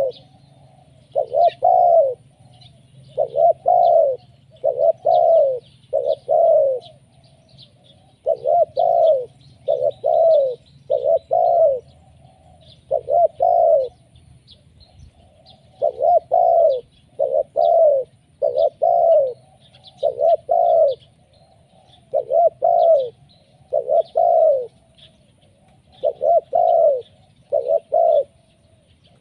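Spotted dove cooing, a lure-style call: loud coos repeated in short groups of two or three notes with brief pauses between the groups, each note arching up and then falling away. Faint high chirps of small birds sound behind.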